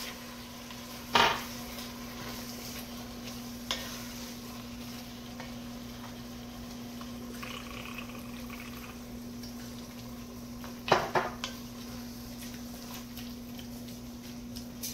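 Wooden spoon stirring meat and vegetables in red wine in an enameled cast-iron Dutch oven, over a steady low sizzle. Utensils knock sharply against the pot about a second in, once near four seconds, and several times near eleven seconds. A steady low hum runs underneath.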